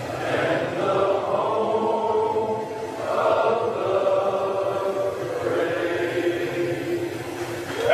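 Choral singing: many voices together holding long, slow notes that change every second or two.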